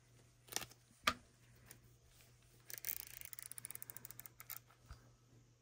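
Faint clicking from the rotary wheel of a LILYGO T-Embed CC1101 handheld: two single clicks, then a quick run of about ten ticks a second for roughly two seconds as the wheel is scrolled through its detents.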